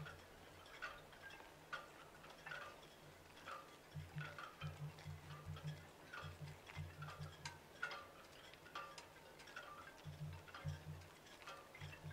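Faint ticking, about once a second, each tick with a short chime-like ring, over a low hum that comes and goes.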